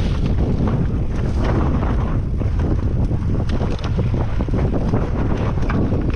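Mountain bike riding a rough trail: wind buffeting the camera microphone over a steady low rumble of tyres on the ground, with many short rattles and clicks from the bike and loose stones.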